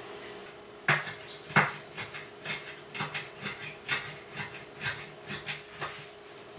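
A string of short, irregular taps and knocks of kitchen utensils on a hard work surface, the two loudest about a second in.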